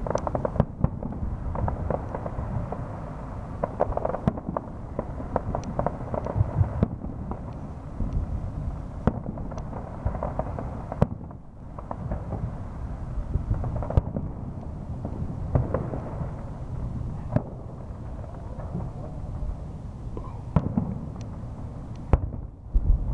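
Aerial fireworks shells bursting in quick succession: a continuous run of booms and sharp bangs with crackle between them, easing briefly about halfway through.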